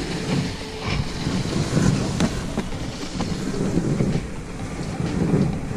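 Dog sled gliding over glacier snow: a steady rumbling scrape from the runners with rattles and scattered sharp clicks from the sled.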